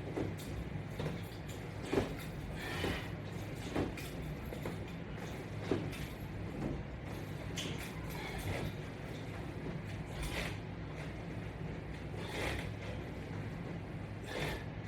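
Resistance band straps and bar attachment creaking and knocking as sit-ups are repeated, a stroke every second or two, over a steady low hum.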